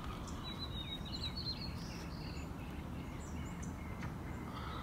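A small songbird chirps, with a quick twittering run of high notes about half a second in and more chirps near the end, over a steady low background rumble.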